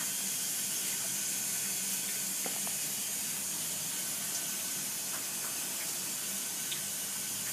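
Steady hiss of water leaking out of a GE hybrid water heater and running onto the floor, with a few faint ticks over a low steady hum.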